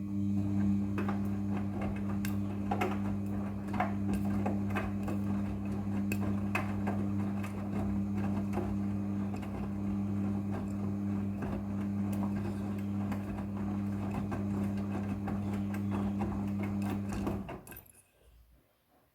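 Midea front-loading washing machine running with a steady low hum and many small clicks and knocks, then cutting off about seventeen seconds in.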